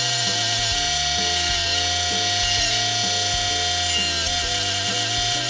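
Drill press running with a steady whine and hiss as it drills through a cedar board, the pitch sagging slightly a couple of times under load. Background music with a stepping bass line plays underneath.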